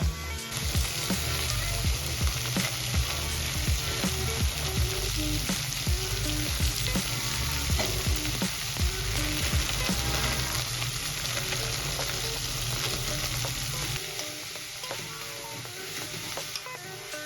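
Food sizzling steadily as it fries in a hot pan, over background music with a beating bass that drops out near the end.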